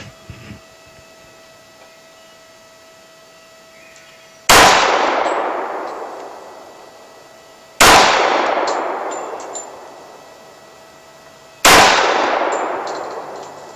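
Three slow, aimed pistol shots from a Dan Wesson Valor 1911, spaced about three to four seconds apart, each a sharp crack followed by a long fading echo.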